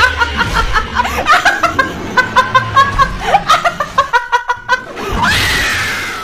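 A woman laughing loudly in rapid, high-pitched bursts over background music, ending in a long high shriek near the end.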